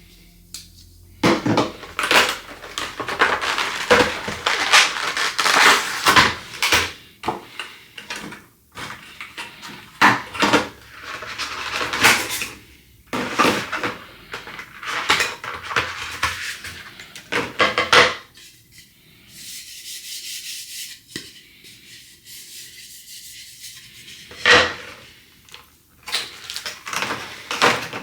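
Unboxing noises: a cardboard box cut open with a knife and its packaging handled, in repeated stretches of scraping and rustling with a few sharp knocks. There is a quieter lull about two-thirds of the way through.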